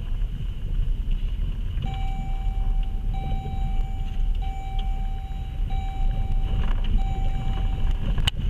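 Inside a car's cabin while it drives over a rough, rocky dirt track: a steady low rumble of tyres and suspension on gravel. From about two seconds in, a steady tone repeats five times in long stretches with short gaps, and a sharp knock comes near the end.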